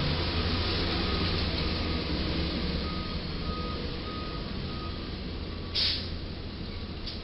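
A heavy truck engine running low, with a reversing beeper beeping steadily about twice a second, and a short sharp hiss near the end.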